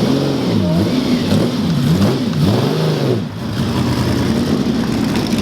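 Ferrari 335 Sport's V12 engine blipped several times, its pitch swooping down and back up in quick revs, then settling to steady running about three seconds in.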